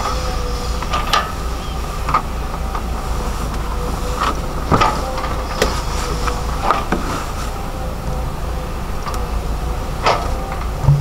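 Volvo EC210DL crawler excavator's diesel engine running steadily under digging load with a steady whine, while the bucket digs and scrapes dirt, giving about seven sharp metallic clanks and knocks at irregular moments.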